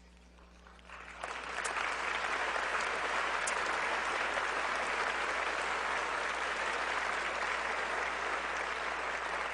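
Audience applauding. It begins about a second in, after a moment's hush, swells, and then holds steady.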